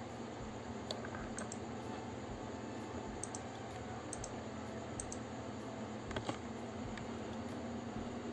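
A few scattered computer keyboard and mouse clicks, irregular and several seconds apart, the loudest a close pair just after six seconds in, over a steady low hum.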